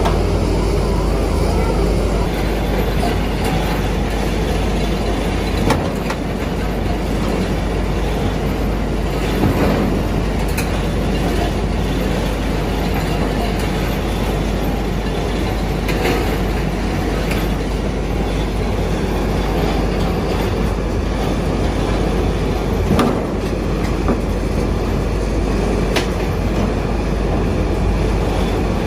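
XCMG XR360 rotary drilling rig running with a steady heavy rumble, with a few sharp metallic clanks or knocks scattered through it.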